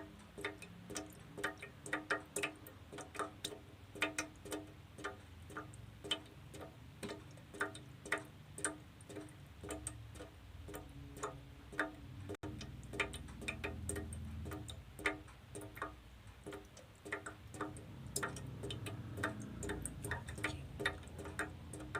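Water drops falling into a can: irregular plinks, about two or three a second, each with a short pitched ring, over a faint low rumble.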